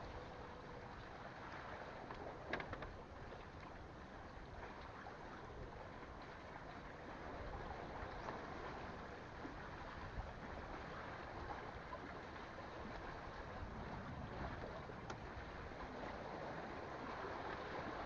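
Seawater lapping with a steady wash of wind and water noise, and a single sharp click about two and a half seconds in.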